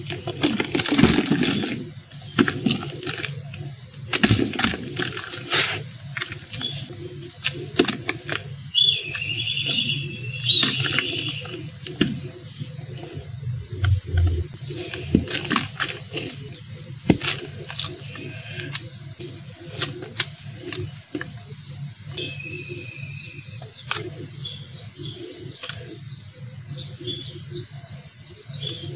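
Hands crushing and crumbling damp sand-cement mix in a tub: irregular grainy crunches, with loose bits falling back onto the pile. Birds chirp now and then in the background, most clearly about ten seconds in and again near the end.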